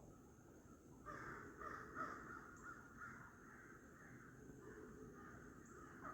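Faint bird calls, a run of calls starting about a second in and lasting about five seconds, over a thin steady high tone.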